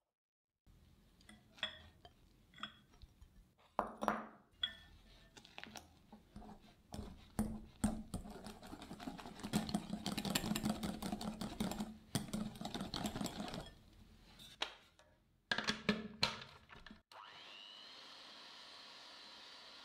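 Wire whisk beating a liquid mixture in a glass bowl: scattered clinks, then a long stretch of rapid, steady clicking and scraping of the wires against the glass. About 17 seconds in, an electric hand mixer switches on with a brief rising whine and then runs steadily.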